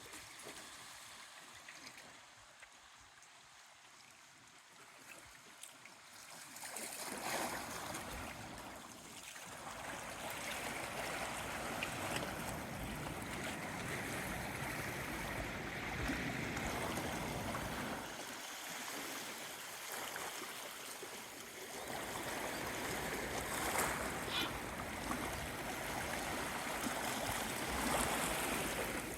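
Strong gusty wind buffeting the microphone, a rushing noise that comes up about seven seconds in and rises and falls with the gusts.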